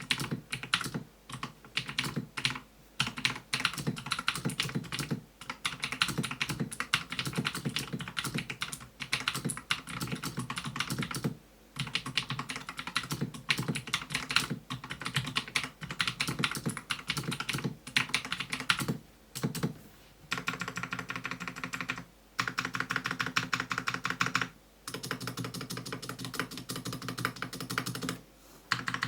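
Typing on a Marvo KG901 mechanical keyboard with Jixian blue switches and stabilizers lubed with sunflower oil: fast runs of key clicks broken by short pauses.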